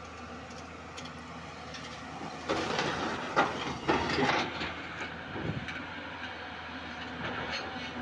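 JCB crawler excavator's diesel engine running steadily; about two and a half seconds in, a bucketful of broken rock and murram pours into a tipper truck's body, a rattling rush with several hard clunks lasting about two seconds.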